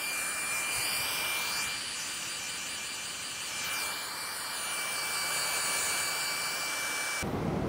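Small electric air pump's motor spinning up and running with a steady high whine over a rush of blown air, stopping abruptly near the end.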